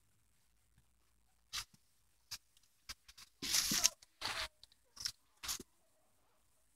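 About seven short rustling and scraping noises, the longest and loudest about halfway through, from hands handling a trim strip and rubbing it against the top of a car's door window frame while lining it up.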